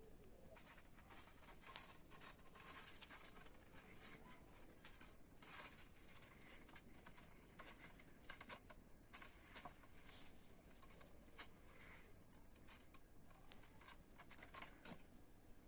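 Faint, irregular rustling and scratching, many small clicks, typical of kittens' claws on pomegranate tree branches and leaves.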